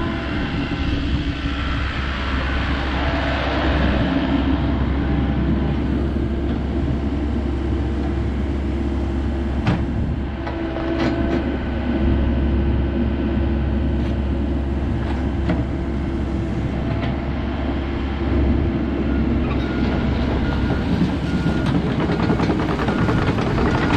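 A 2007 Komatsu PC78US-6 compact excavator's diesel engine running steadily, with a few sharp metallic knocks about ten seconds in.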